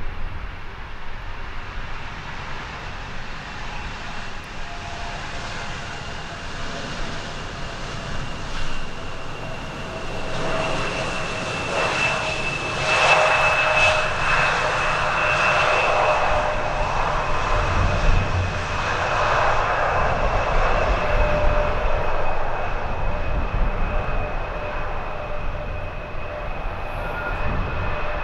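A jet airliner's engines passing: the noise swells to a peak over several seconds, then slowly fades, with a steady high whine from the engines. A low rumble of wind on the microphone runs underneath.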